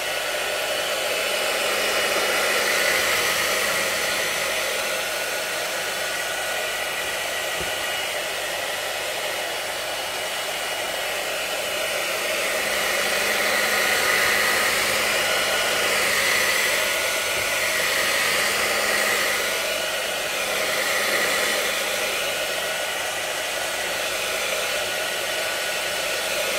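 Handheld hair dryer blowing steadily, a continuous rush of air over a faint motor hum, swelling and easing slightly as it is moved about over the plate. It is drying wet Mod Podge glue on a decoupage napkin.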